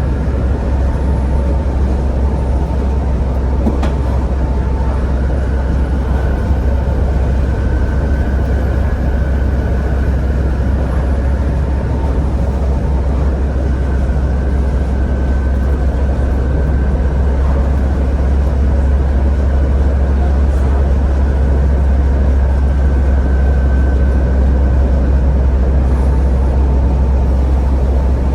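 Volvo B7TL double-decker bus running steadily under way. Its six-cylinder diesel engine gives a heavy low drone, with a thin whine coming and going above it. It grows slightly louder in the second half.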